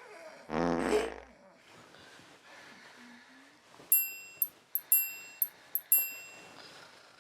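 A loud, low, buzzing fart sound effect with a falling pitch, lasting under a second near the start. From about four seconds in, a run of bright, ringing chime dings follows in irregular succession, each dying away quickly.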